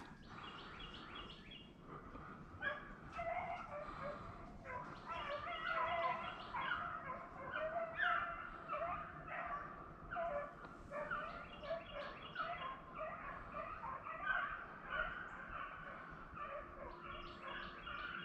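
A pack of rabbit hounds baying faintly while running a rabbit: many short, overlapping bawls and yelps that keep up without a break.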